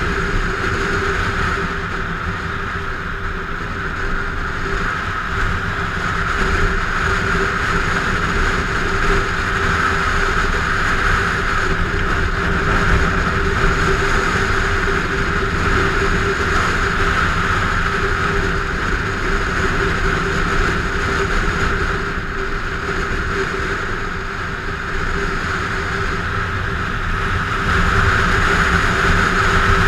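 Motorcycle riding at highway speed: a steady engine drone mixed with the rush of wind and tyre noise, getting a little louder near the end.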